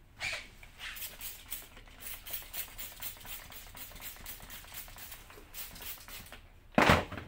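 Hand-trigger spray bottle pumped over and over, short hissing squirts at about four or five a second, then a single loud thump near the end.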